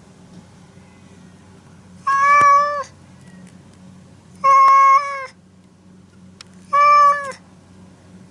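A brown tabby-and-white cat meowing three times, about two seconds apart. Each meow is held at a steady pitch and drops at the end.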